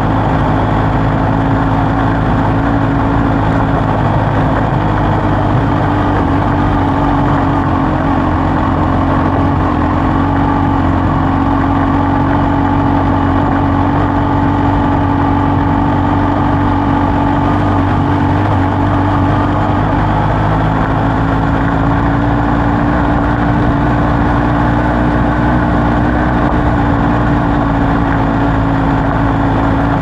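Kawasaki Z H2's supercharged inline-four engine running steadily under light throttle while riding, its pitch rising and dipping only gently.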